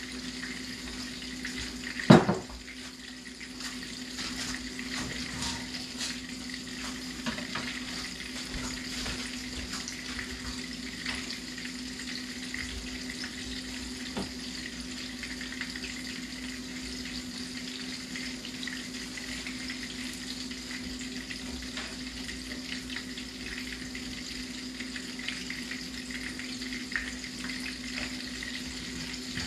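Coconut-crusted fish fillets shallow-frying in oil in a skillet: a steady sizzle with light crackling. A single sharp knock about two seconds in is the loudest sound.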